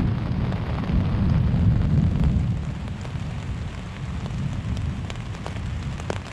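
Rain falling, with a deep low rumble through the first couple of seconds that then dies down. Sharp single drops hit close by in the second half.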